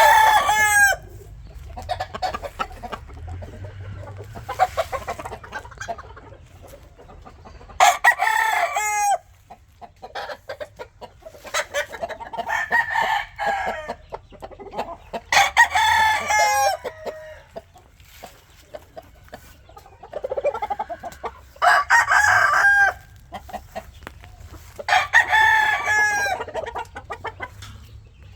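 Roosters crowing over and over, about six crows of a second or so each, with quieter clucking between them.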